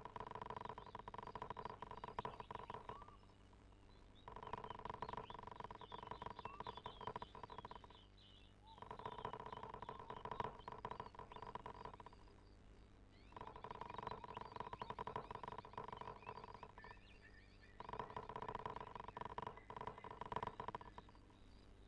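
Toshiba washing machine running a wash, its motor humming in spells of three to four seconds with a pause of about a second between them, the on-and-off agitation of a wash cycle.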